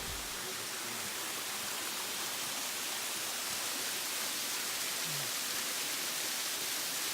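A waterfall's falling water making a steady, even rush.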